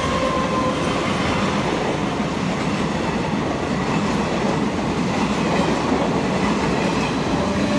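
Passenger train passing close by: the steady, continuous noise of its coaches rolling along the track.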